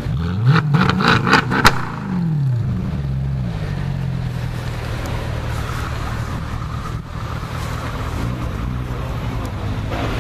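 Mercedes C63 AMG's 6.2-litre V8 revved once on the spot: the revs climb, several sharp cracks come near the top, and the revs fall back to a steady idle after about three seconds, which then runs on.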